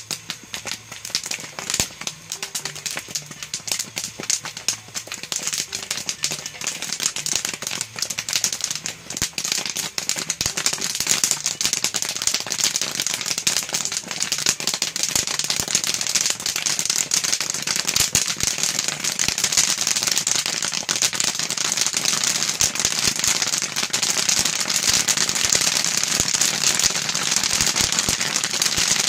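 Kettle corn popping in a large kettle while being stirred with a wooden paddle: scattered pops at first that build, from about ten seconds in, into a dense, steady crackle of bursting kernels over a high hiss.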